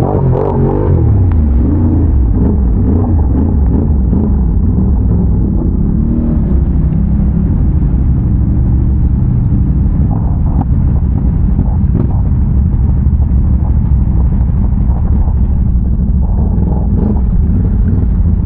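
Can-Am Renegade ATV's big-bore V-twin engine running steadily while riding: a loud, even low rumble with a few faint knocks partway through.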